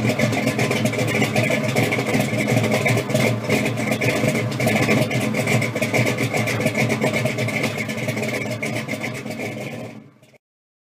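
A car engine running steadily, fading out about ten seconds in.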